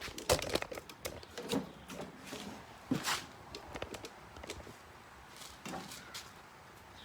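Irregular clicks, knocks and scrapes of a cooking utensil against a pan as frying potatoes and onions are stirred, the potatoes starting to burn.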